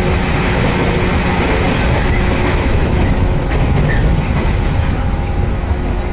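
Sanyo Line electric train running steadily, heard from inside the passenger car: a constant rumble of the wheels on the rails and the running gear.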